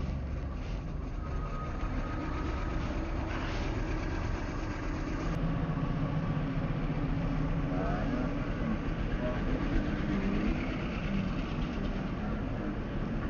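Motorcycle engine running steadily as the bike rides along a street, with road and traffic noise.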